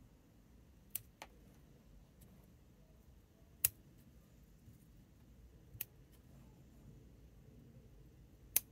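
Bonsai scissors snipping twigs and needles from a small conifer: five sharp, crisp snips at irregular intervals, two close together about a second in, with the loudest a third of the way through and near the end.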